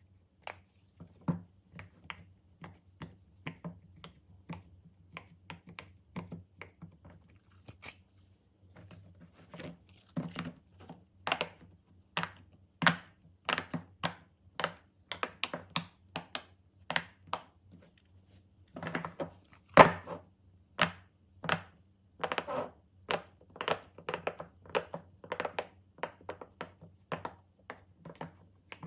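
Plastic fidget toys being handled: many sharp clicks and taps at irregular intervals, sometimes in quick runs, sparser early on and busier in the second half.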